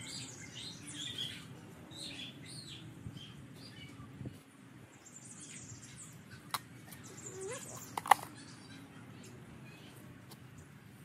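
Small birds chirping repeatedly over a soft low rustling of gloved hands working garden soil. Two sharp clicks, the louder one about eight seconds in.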